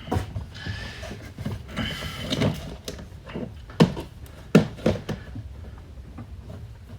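Kitchen handling sounds: a short sliding rasp in the first two seconds, then two sharp knocks a little under a second apart, as things are moved about and set down on a counter.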